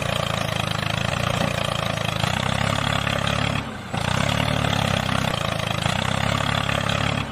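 Tractor engine running steadily, with a brief drop in sound about three and a half seconds in.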